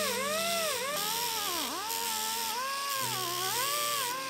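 Die grinder grinding the rivet heads off a motorcycle brake pedal tip, its high whine dipping in pitch again and again as the disc bears down on the metal and recovering as it eases off.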